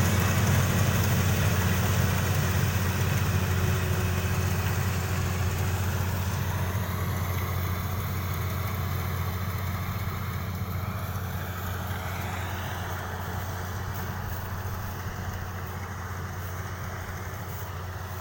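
Kubota DC-35 combine harvester's diesel engine running steadily with a low hum, growing gradually fainter.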